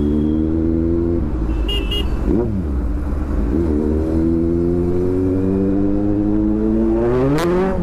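Kawasaki Z900's inline-four running through a loud SC-Project aftermarket exhaust as the bike pulls through the gears: the engine note climbs steadily, breaks at a gear change about a second in, gives a quick rise and fall, climbs again, then revs up sharply near the end and drops away.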